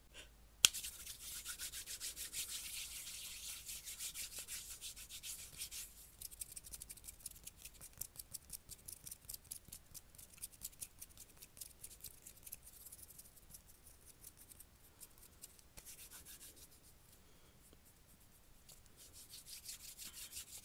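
Hands rubbing together close to the microphone. A sharp click comes about half a second in, then fast continuous rubbing for about five seconds. This slows into separate back-and-forth strokes, two or three a second, that fade out, and the rubbing picks up again near the end.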